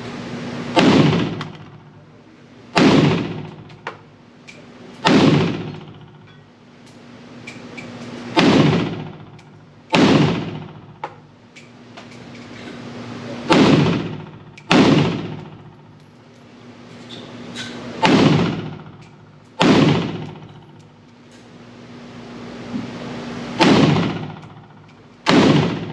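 Pioneer Arms Hellpup 7.62x39 AK-pattern pistol fired semi-automatically: about eleven single shots at an uneven pace, one to four seconds apart, each with an echoing tail.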